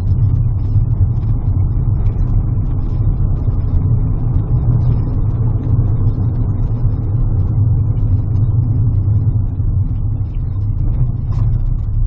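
Car driving along a road, heard from inside the cabin: a steady low rumble of engine and tyres.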